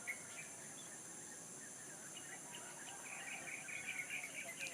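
Small birds chirping, sparse at first and then in quick runs of chirps from about halfway through, over a steady high-pitched insect drone.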